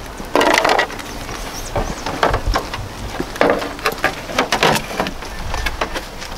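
Irregular crackles, scrapes and light knocks of a plastic fender flare being held and shifted against a car's front wheel arch.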